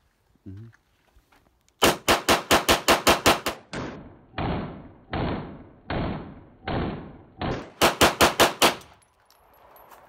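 Glock pistol fired in two very fast strings of shots, about ten in under two seconds, then six or seven more about eight seconds in. Between the strings come five duller, drawn-out booms about one a second.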